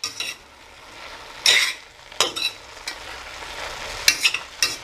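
A pot of kale, zucchini, squash and peppers sizzling on the stove while being stirred. A utensil scrapes the bottom of the pot in several short, irregular strokes over a steady sizzle.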